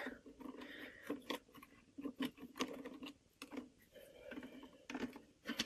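Scattered light clicks and taps of dried jerky pieces being handled on plastic dehydrator trays.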